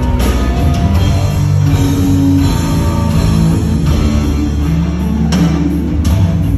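Live rock band playing: electric guitars, bass and drums, with cymbal crashes about five and six seconds in.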